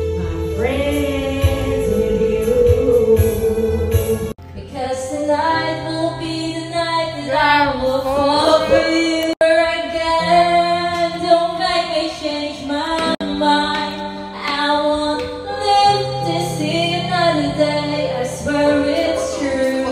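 Women singing karaoke through a handheld microphone over a backing track. The sound breaks off and changes abruptly a few times, about four, nine and thirteen seconds in.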